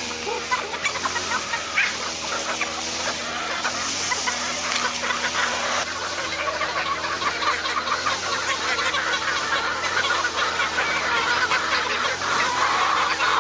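A large flock of chickens clucking and calling over one another, growing louder near the end, with a steady low hum underneath.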